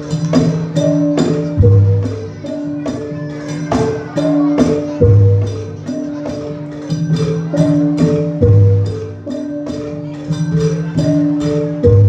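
Javanese gamelan music for Jathilan (kuda lumping): ringing metal-keyed instruments repeat a melody over sharp drum strokes, with a deep low stroke about every three and a half seconds.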